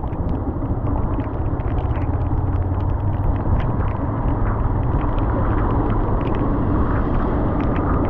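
Yamaha R15 motorcycle being ridden on a wet road: a steady low rumble of engine, tyres and wind, with scattered light ticks.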